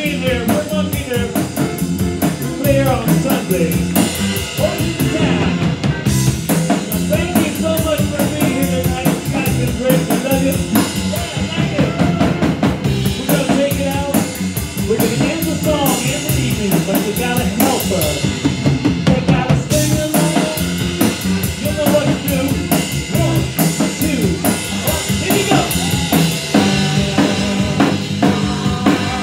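Live rock band playing: a drum kit keeps a busy beat on snare and bass drum under electric guitar.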